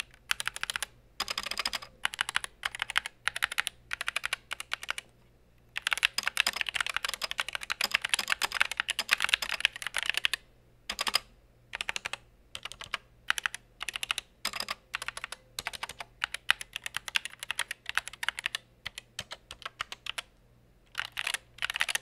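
Typing on a GK61 60% mechanical keyboard fitted with Gateron red optical linear switches and Feker dye-sublimated keycaps: runs of quick key clacks in bursts, broken by short pauses, with the fastest, densest typing about six to ten seconds in.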